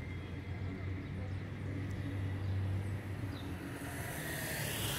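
Outdoor street ambience: a steady low rumble of traffic, with a hiss that swells and fades near the end.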